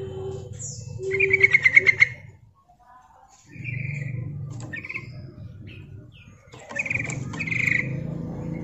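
Yellow-vented bulbul calling: a fast chattering run of bubbly notes about a second in, then a few scattered single notes and two loud notes near the end. It is a female's call to males, used as a lure.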